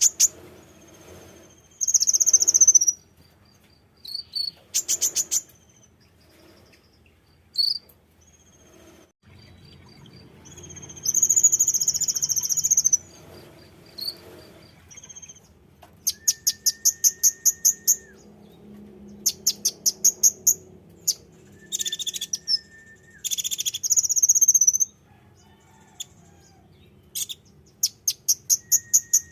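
Konin songbird calling: bursts of rapid, high-pitched chirps, about ten a second, alternating with harsh buzzy notes and a few short whistles, used as a bait call to set caged birds singing.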